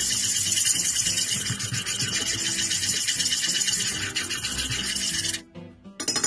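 Wooden chopsticks scraping rapidly and loudly against a small saucepan while whisking a thick milk-and-gelatin mixture. The scraping stops about five seconds in, and a brief sharp knock follows near the end.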